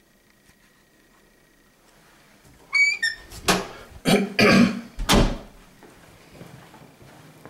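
A brief high squeak, then a fit of several loud, harsh coughs in quick succession.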